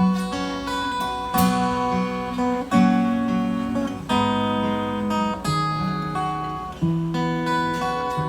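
Acoustic guitar strumming a chord progression, with a new chord about every second and a half.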